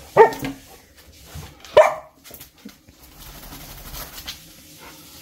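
Samoyed dog giving two short barks about a second and a half apart, excited protest-like vocalising in its post-bath burst of energy.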